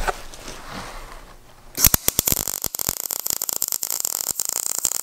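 MIG welding arc striking about two seconds in, then crackling and sputtering fast and steadily as a bead is run on thin 16-gauge square tubing. The welder says it burnt through, with the wire speed set too low.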